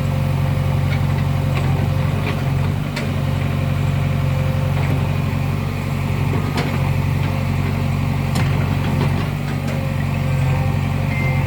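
JCB 3DX backhoe loader's diesel engine running steadily, with a few sharp clicks and knocks scattered through it.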